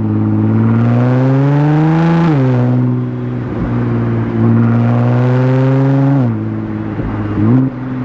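Nissan GT-R R35's twin-turbo V6, on a non-catted midpipe, pulling under acceleration. The revs climb for about two seconds and drop sharply on an upshift, then hold fairly steady. Near the end they fall away as the throttle is lifted, with a brief quick rise and fall just before the end.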